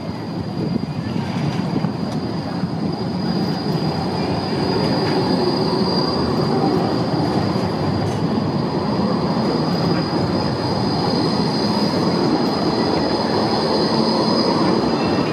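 Articulated city tram passing close by on street track. Its wheels squeal steadily at a high pitch over the rumble of its running gear, and the rumble grows louder about four seconds in as it draws level.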